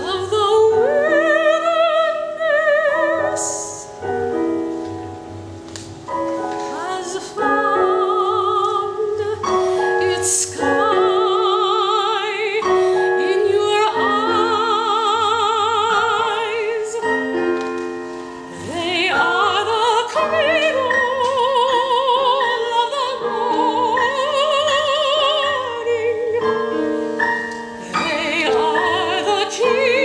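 A woman singing a classical art song in operatic style, her long held notes with a wide vibrato, accompanied by a digital piano. The voice dips briefly between phrases while the piano chords sustain.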